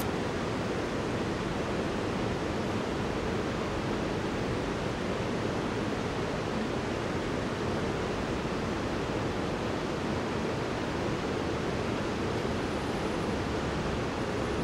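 Steady rush of flowing river water, an even hiss-like noise that holds level throughout.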